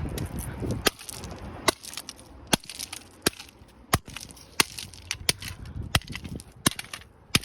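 Repeated hard blows on an Alcatel flip phone being smashed apart: about ten sharp impacts at an even pace, roughly one every 0.7 seconds.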